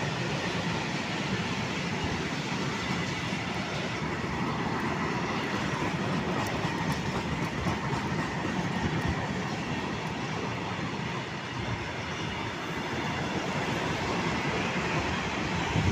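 Open-top freight wagons rolling past on the rails: a steady rumble and rattle of steel wheels on track.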